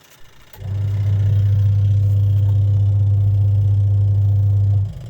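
Sharp washing machine's electric motor and gearbox running with a steady hum, starting about half a second in and stopping shortly before the end.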